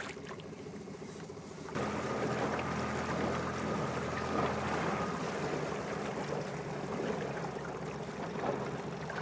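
Suzuki outboard motor running at trolling speed, its throttle opened about two seconds in so the engine hum steps up louder, with water rushing along the boat.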